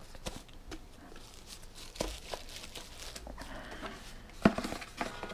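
Small white paperboard product boxes being handled: card sliding and rustling, with a few light taps and one sharper knock about four and a half seconds in.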